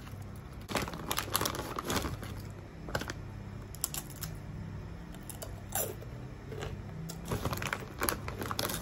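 A plastic tortilla chip bag crinkling as it is handled and reached into, in irregular crackles, with a chip crunching as it is bitten.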